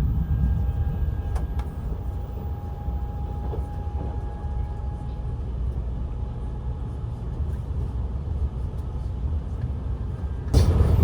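Limited express electric train running at speed, heard from inside the carriage: a steady low rumble of wheels on rails. It turns suddenly louder about ten and a half seconds in.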